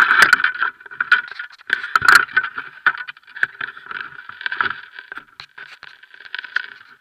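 Irregular knocks, clicks and scrapes of handling noise as the camera and its fishing-rod pole are handled, picked up by the action camera's own microphone. The loudest knocks come about two seconds in, and they thin out toward the end.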